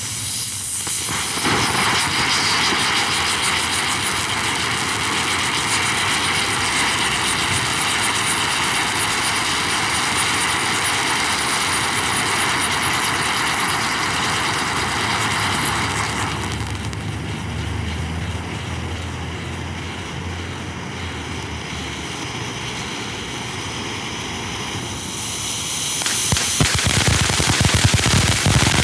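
Black Cat Mad Cat firework fountain hissing steadily as it sprays sparks, with a faint high whistle over the hiss. About 16 seconds in the hiss drops lower, and near the end it turns into loud, dense crackling as the fountain throws out crackling white sparks.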